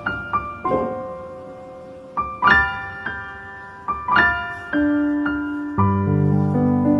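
Background piano music: slow, gentle notes struck and left to ring and fade, with deeper sustained chords coming in near the end.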